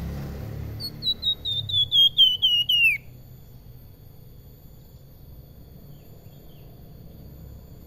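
A caged flamboyan songbird sings one fast run of about a dozen clear whistled notes. Each note drops a little lower in pitch than the one before, the run grows louder as it goes, and it ends on a longer down-slurred whistle about three seconds in.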